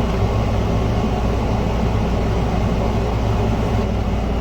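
Steady low machine hum with an even rushing noise, like a room fan or air-conditioning unit running.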